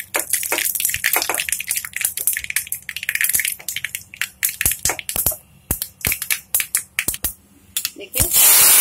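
Mustard seeds, dried red chillies and curry leaves crackling in hot oil in a small pan, with many sharp irregular pops: a tadka tempering. Near the end a loud, steady sizzling hiss starts as the hot tempering is poured onto the coconut chutney.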